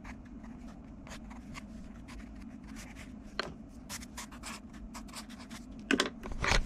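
Graphite pencil shading on sketchbook paper: quick, short scratching strokes, several a second. Near the end come two louder knocks.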